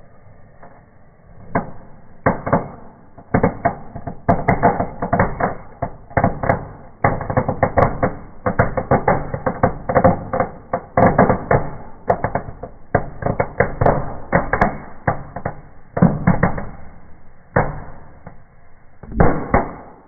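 Fireplace fireworks going off in a fire: a rapid, irregular run of sharp cracks and pops. They start about a second and a half in, come thickest in the middle and end with a last cluster near the end.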